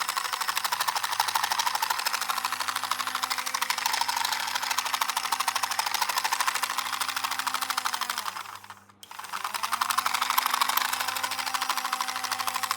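A small motor-driven mechanism running with a fast, even clicking. It winds down and stops about eight and a half seconds in, then starts up again.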